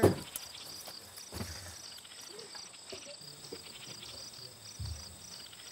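Crickets chirping steadily in an evenly repeating pattern, with a few soft low thumps.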